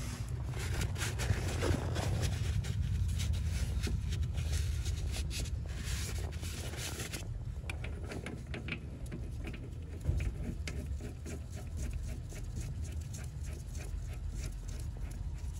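Threaded aluminium filter plug of the active ride suspension being turned in by a gloved hand: rapid soft scraping and clicking of the threads, thinning out about halfway through, with one knock about two-thirds in, over a steady low rumble.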